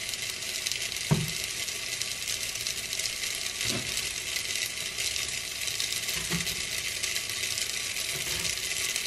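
Sauce sizzling steadily in a hot pot on the stove, with three knocks of a spoon against the pot: about a second in, near four seconds, and just past six seconds.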